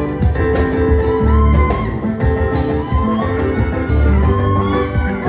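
Live band music with a steady bass line and held keyboard chords, with gliding melodic lines over the top.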